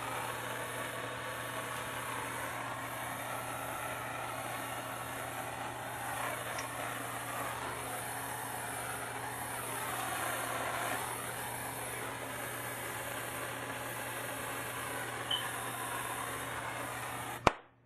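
Plumber's gas torch burning with a steady hiss as it heats a copper pipe elbow joint to draw in solder. Near the end the flame cuts off abruptly with a sharp click.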